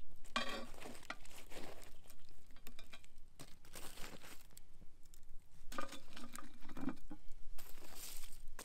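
Metal tongs raking through embers and setting hot wood coals onto a cast iron Dutch oven lid: irregular crunching and scraping, with light clinks of metal on metal and coals knocking against the iron.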